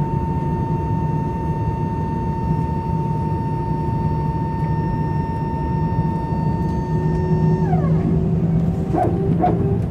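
Airliner cabin during taxi: a steady jet engine whine over a constant low rumble. About three quarters of the way through, the whine bends down in pitch and drops out, and a few short, irregular bursts follow near the end.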